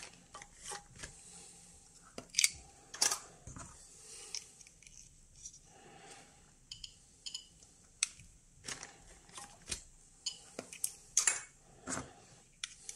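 Handling noise: a plastic zip bag crinkling, with irregular small clicks and taps of objects being moved.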